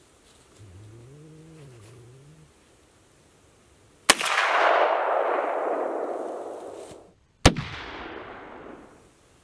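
Two rifle shots from a Marlin .45-70 lever-action, about three and a half seconds apart, each a sharp crack that trails off over a second or more across open ground.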